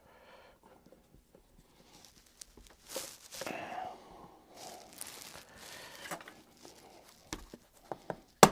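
Rustling and handling noises, followed near the end by several short sharp clicks and knocks, the last one the loudest.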